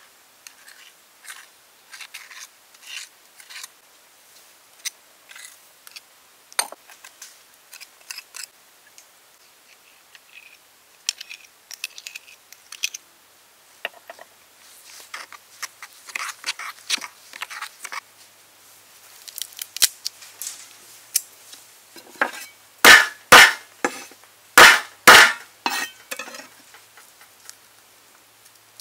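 Food being prepared: scattered light clicks, taps and handling noises, then about four hard chops on a cutting board in two close pairs, some way past the middle.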